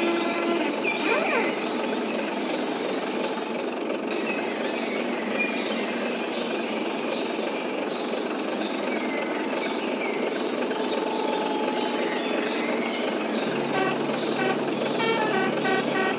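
Basuri multi-tone 'telolet' bus horn playing its stepped melody of short held notes, briefly near the start and again in the last couple of seconds, over a steady din of street and traffic noise.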